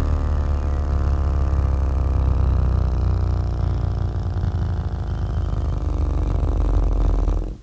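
JL Audio 7-inch subwoofers in a sealed enclosure playing a loud, deep, steady bass drone from a bass test track, with buzzing overtones above it. It cuts off abruptly near the end.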